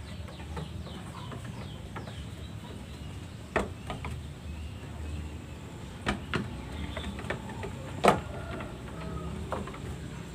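Young lambs' hooves knocking on a slatted bamboo pen floor: a handful of sharp, separate knocks with a second or more between them, the loudest about eight seconds in.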